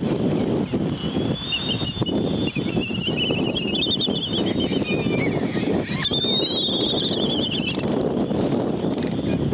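Wind rumbling on the microphone over the short clacks of two Laysan albatrosses bill-fencing in their courtship dance. High warbling bird calls come in two stretches, about a second and a half in and again about six seconds in.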